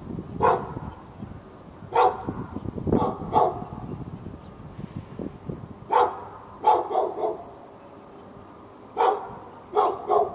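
A dog barking in short clusters of one to four sharp barks every couple of seconds: continuous nuisance barking at the dog next door.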